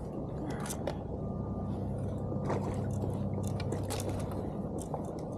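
Scattered clicks, scrapes and crackles of a rubber-mesh landing net being handled with a caught rainbow trout inside, over a steady low hum.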